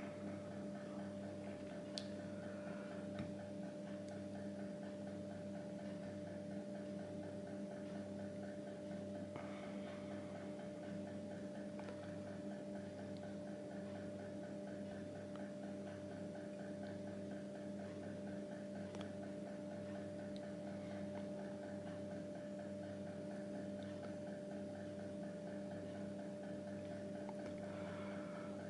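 Steady electrical-sounding hum made of several held tones, with a soft, regular low throb about one and a half times a second and a couple of faint clicks near the start.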